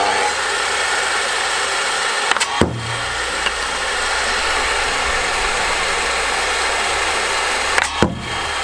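Table saw running steadily at full speed, with a sharp knock about two and a half seconds in and another near the end.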